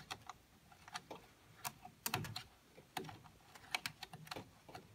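Faint, irregular small clicks and taps of a hand working a plastic wiring-harness connector on a battery pack's circuit board.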